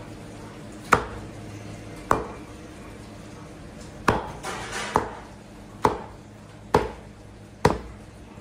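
Meat cleaver chopping raw beef on a thick wooden butcher's block: seven sharp chops, the last five coming about once a second.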